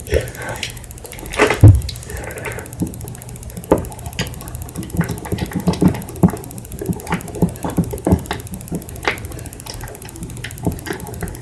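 A utensil clicking and scraping against a bowl while slime is mixed, with irregular small knocks and a heavier thump about a second and a half in.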